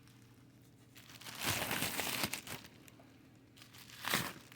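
Packaging crinkling as it is handled: a burst of about a second and a half, then a shorter crinkle near the end.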